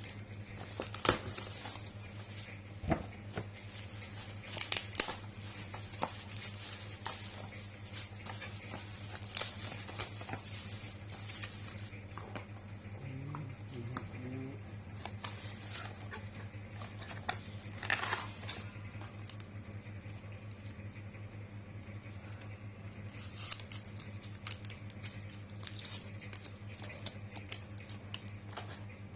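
A parcel being unpacked by hand: plastic packaging crinkling, tearing and rustling, with scattered small clicks and knocks as the contents are handled. A steady low hum runs underneath.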